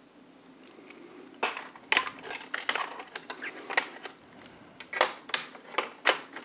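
Irregular light clicks and taps of a screwdriver and small hard parts being handled, starting about a second and a half in.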